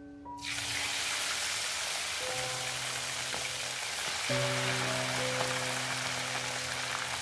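Galangal-spiced chicken dropped into hot oil in a clay wok, setting off a loud, steady sizzle of deep frying that starts suddenly just after the start.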